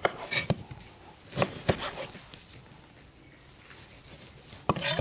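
Kitchen knife cutting a wedge from a lime on a cutting board: a few sharp knocks in the first two seconds and a short, louder clatter near the end.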